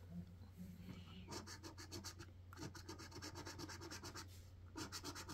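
Scratchcard being scratched: the coating scraped off in rapid strokes, in three runs with short breaks between them.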